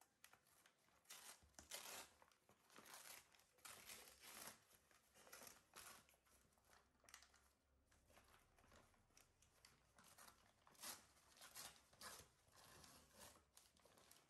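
Faint ripping and crinkling of a brown kraft-paper mailer bag being torn open by hand, in many irregular short rips and rustles.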